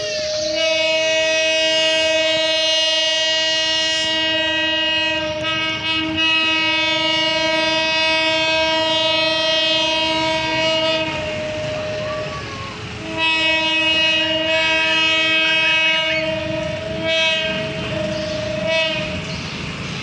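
Train horn sounding two long blasts, the first about ten seconds and the second about six, over a railway level crossing's warning siren. Between the blasts the siren can be heard on its own, alternating between a higher and a lower tone.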